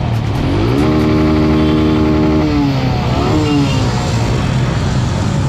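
Motorcycle engine revving up, holding a steady note for about a second and a half, then dropping back, followed by more uneven revs.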